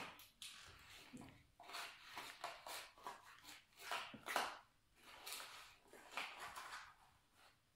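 A cat batting and pushing a cigarette pack across a wooden floor: a run of short, irregular scrapes and taps.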